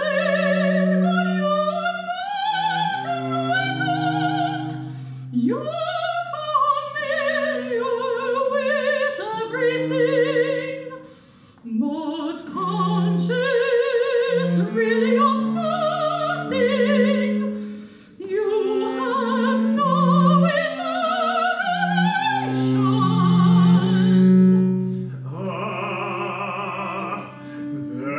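A soprano sings an operatic line in English with wide vibrato, phrase after phrase, over sustained low cello notes. In the last few seconds the texture changes to denser, higher held sound.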